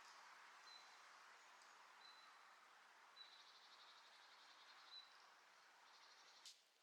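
Quiet forest ambience: a soft steady hiss with a few short, high bird chirps and a brief trill in the middle. A single click near the end, where the hiss cuts off suddenly.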